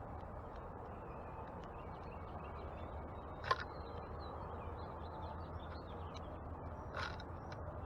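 Wild backyard birds chirping, with many short high calls throughout over a steady low background hum, and two louder sharp sounds about three and a half and seven seconds in.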